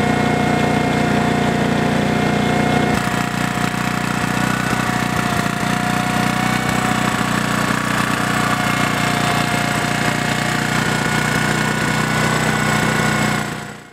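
Briggs & Stratton Q6500 inverter generator's 306cc overhead-valve four-stroke engine running steadily at a constant speed. Its note changes abruptly about three seconds in, and the sound fades out near the end.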